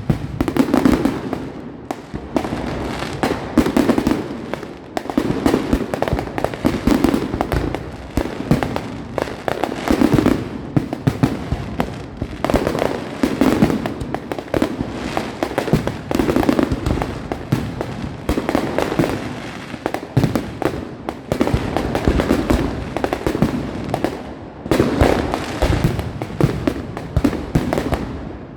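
Fireworks display going off: a dense, continuous run of bangs and crackling reports, many bursts close together.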